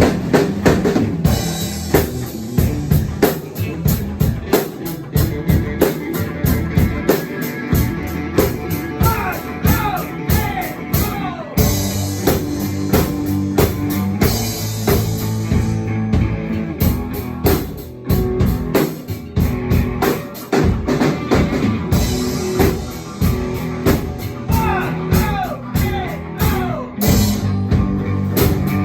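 Rock band playing: a drum kit keeps a steady beat with bass drum and snare, under held low notes and some sliding higher notes.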